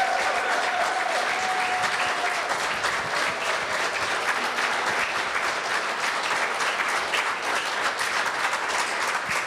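Audience applauding steadily. A held tone sits over the clapping for the first two seconds or so.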